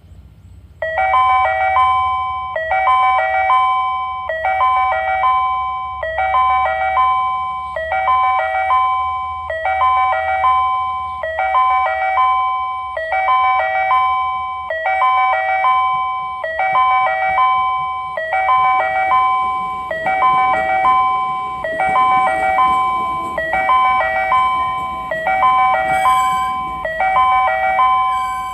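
Japanese railway station's electronic seven-strike chime, repeating a short cluster of bell-like tones about every 1.7 seconds.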